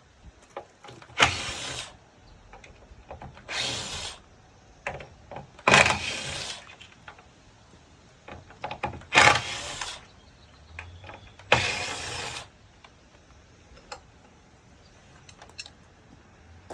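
Power drill run in five short bursts of a second or less each, a few seconds apart, with small clicks between them.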